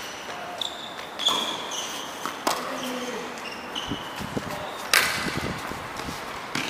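Tennis ball strikes and bounces on a hard court, with short sneaker squeaks. The loudest is a sharp racket hit about five seconds in.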